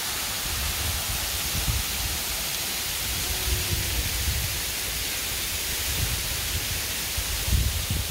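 Steady rushing of a waterfall, with gusts of wind buffeting the microphone in uneven low rumbles, strongest near the end.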